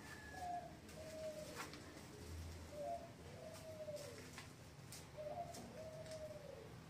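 A bird's soft calls, repeated about four times, each a brief upward note followed by a slow falling tone; a few faint clicks sound between them.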